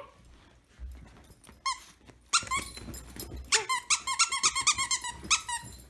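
Plush dog squeaker toy squeaked over and over in quick runs of short, high-pitched squeaks, starting about two seconds in.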